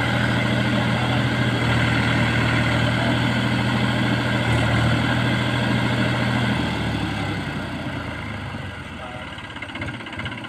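Mahindra diesel tractor engine running steadily under heavy load while the tractor works in deep mud. About two-thirds of the way through, the engine note drops and grows quieter.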